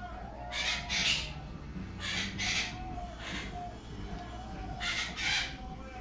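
Quaker parrot (monk parakeet) giving short, harsh squawks, mostly in quick pairs, about seven in all.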